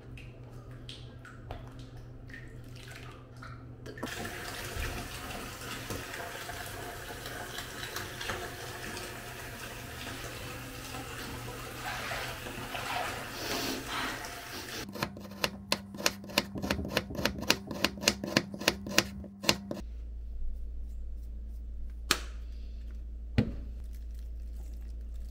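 Water running for about ten seconds, then a quick series of sharp taps, about four a second, then a steady low hum with a couple of single clicks.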